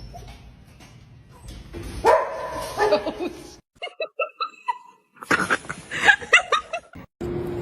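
Dog barks and yips in a few short runs, each cut off abruptly.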